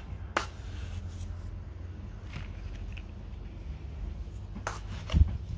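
Small metal hand trowel scooping and scraping through loose potting soil, with a few sharp knocks, the loudest near the end.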